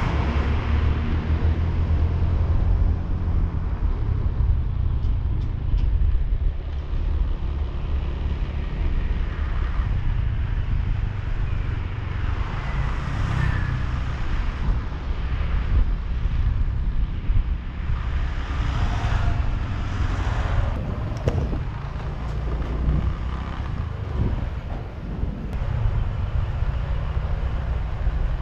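Ride noise from a motor scooter on a town street: heavy wind rumble on the microphone of a camera mounted on the moving scooter, over the scooter's engine and passing traffic.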